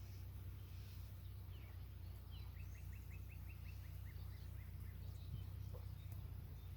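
A bird calling a quick run of about eight short downward-sliding notes, roughly four a second, over a steady low rumble.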